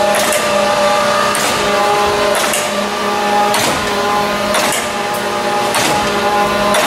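A Mattison 12" x 48" surface grinder running under power: a steady machine hum with a sharp click about once a second.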